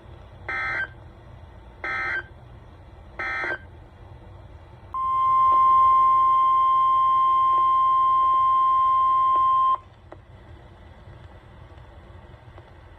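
NOAA Weather Radio SAME alert header: three short bursts of warbling digital data tones about 1.4 seconds apart. They are followed by the single-pitch 1050 Hz warning alarm tone, held steady for about five seconds and then cut off. This signals the start of a new warning broadcast.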